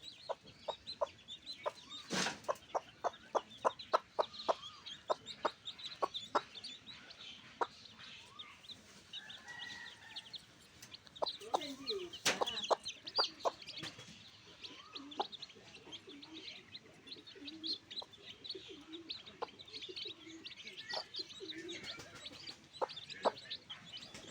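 Backyard chickens clucking, with a quick run of short sharp calls in the first few seconds and high chirps throughout.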